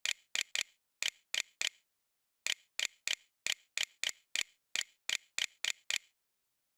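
Computer mouse clicking, about eighteen sharp clicks in quick, irregular runs of two or three a second, with a short pause about 2 s in; the clicks stop about a second before the end.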